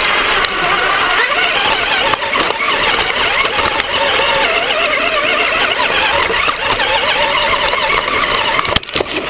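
Battery-powered Traxxas RC car's electric motor and drivetrain whining at speed, the pitch rising and falling with the throttle over tyre and ground noise, picked up close by a camera mounted on the car. A couple of knocks near the end as the sound drops away.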